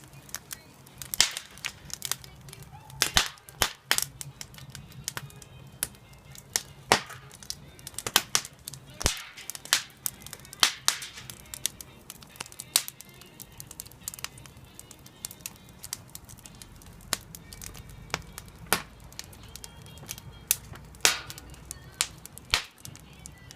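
Wood fire crackling and popping inside a stainless-steel washing-machine drum fire pit, with irregular sharp cracks a few times a second.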